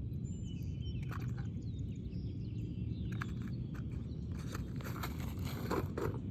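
Scattered scraping and shuffling on an asphalt shingle roof as a new shingle is worked into place, over a steady low background rumble; the scrapes come closer together near the end.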